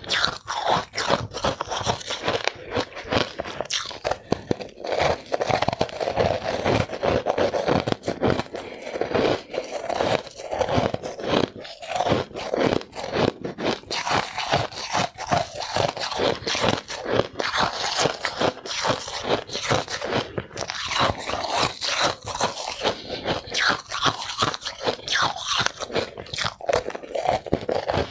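Close-miked crunching of ice being chewed, in rapid, closely packed crunches.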